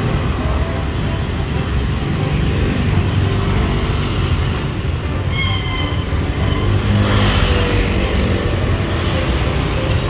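Steady street traffic noise from motorbikes and cars running along a busy city street. A short high-pitched sound cuts through about halfway.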